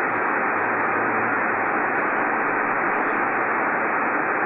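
Steady static hiss of 75-meter band noise from a Yaesu FT-1000MP Mark-V HF transceiver's speaker, tuned to lower sideband with no station talking.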